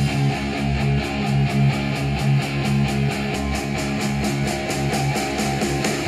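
Guitar-driven rock music with a steady, quick beat, played back through a pair of Adam Audio A5X studio monitors and picked up in the room by a stereo pair of microphones.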